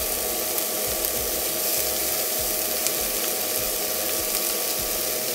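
Steady frying sizzle of diced onion, green bell pepper and tomato in a hot nonstick skillet.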